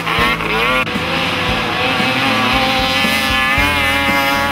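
Snowmobile engine running at high revs as the sled skims across open water, its pitch swooping up and down near the start and again later, over the hiss of spray.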